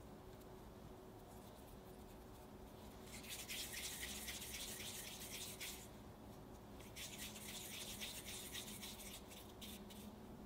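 Hands rolling a piece of chocolate truffle mixture into a ball: two bouts of hissing, crackly rubbing, each about two and a half seconds, starting about three seconds in and again about seven seconds in.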